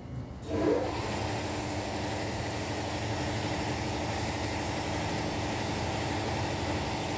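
A machine starts up about half a second in and then runs steadily, a constant hiss with a low hum.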